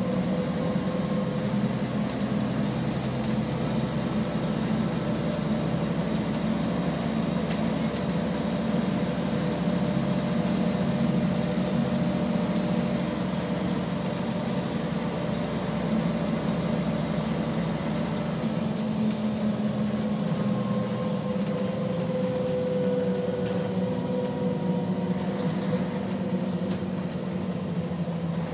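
Mercedes-Benz O500LE city bus under way, heard from inside the passenger cabin: the engine runs with a steady whine from its ZF gearbox, and the deep engine rumble drops away a little past halfway. Later a whining tone slides slowly down in pitch, with occasional light rattles from the interior.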